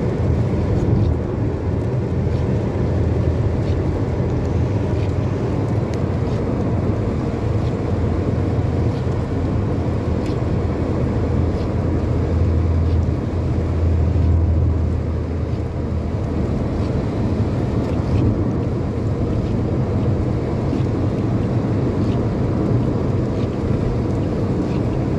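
Steady cabin noise of a car driving on a wet highway: a deep rumble of tyres and engine with the hiss of road spray.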